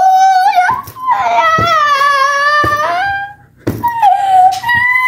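A young girl crying, in a string of long, high wails with short breaks for breath between them.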